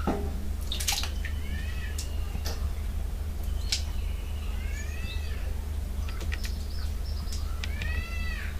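A few short animal calls that rise and fall in pitch, one about a second in, one around the middle and a stronger one near the end, over a steady low rumble. Scattered sharp clicks come from steel utensils being handled at a kadai.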